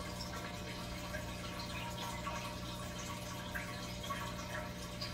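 Aquarium filter running: water trickling and dripping into the tank over a steady low hum.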